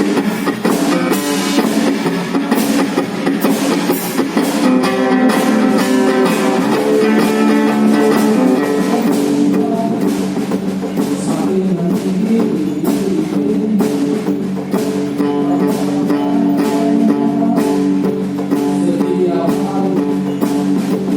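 Live band playing a song: guitar with drums and added percussion, the strikes keeping a steady beat.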